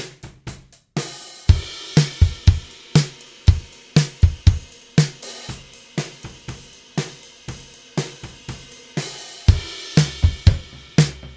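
Drum kit playing a steady groove of kick, snare and cymbals, heard through the overhead microphones alone, with cymbals and snare forward and little low end from the kick. About a second in, a cymbal crash opens the groove after a few light hits. Near the end the close microphones are added for the full mix, and the kick's low end fills out.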